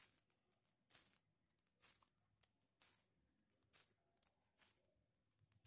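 Faint soft squishing of a hand squeezing mashed rice-and-potato cutlet mixture in a fist, coming about once a second.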